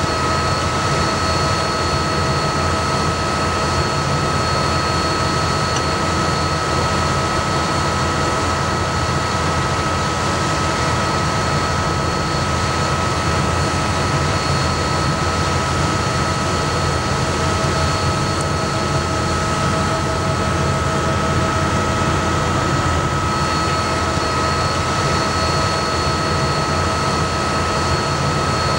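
John Deere combine harvester running steadily, a low rumble with a constant high whine over it, while its hydraulics fold the corn head.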